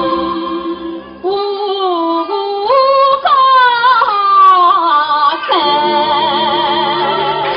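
Shanghai opera (Huju) singing with a traditional accompanying ensemble: the drawn-out closing phrase of a fuzi ban aria, with held, wavering notes and sliding melodic runs.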